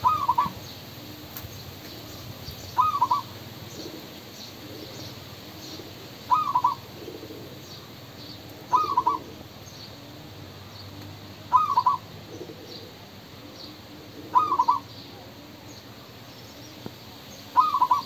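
Male zebra dove cooing: seven short, trilled coos, one about every three seconds.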